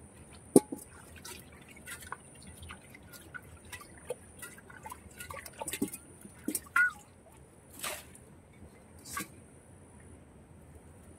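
Hands and bare feet working in shallow muddy water: small splashes, drips and squelches at irregular intervals, a few of them sharper.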